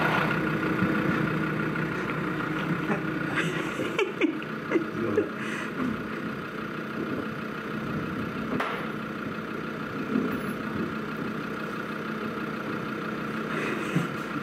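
Peugeot J7 van's engine idling steadily, heard from inside the bare metal load area, with a few sharp knocks about four to five seconds in and another just past the middle.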